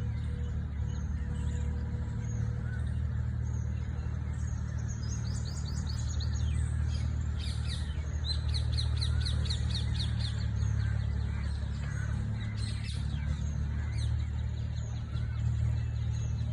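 A bird calls in rapid series of short, high, downward-sliding chirps, starting about five seconds in and stopping around thirteen seconds, over a steady low rumble.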